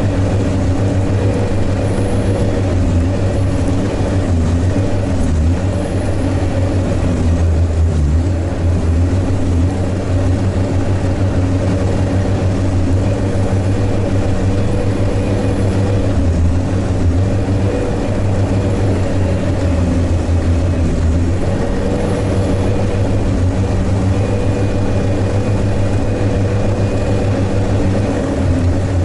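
Diesel engine of a Sherp all-terrain vehicle running steadily as it drives, heard from inside the cab as a constant low drone.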